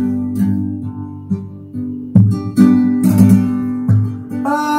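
Acoustic guitar strumming chords in a break between sung lines of a song, with sharp strums about two seconds in and again near the end; a singing voice comes back in just before the end.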